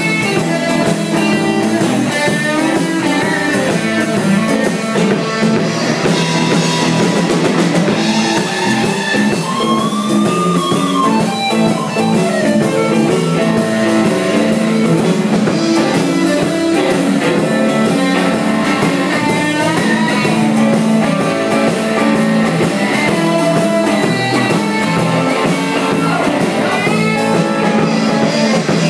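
Live blues band playing an instrumental stretch: electric guitar, bass guitar and drum kit, with guitar notes bending in pitch.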